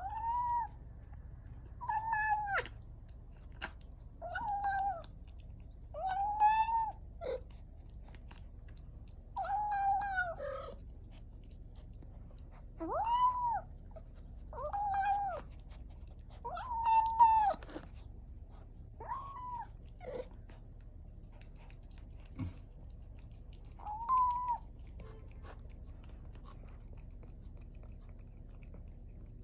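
Newly weaned kitten making short, arched mewing calls while it eats wet food, about a dozen of them with small chewing clicks in between: the noise some cats make over food they find delicious. The calls stop about 25 seconds in, leaving only faint chewing.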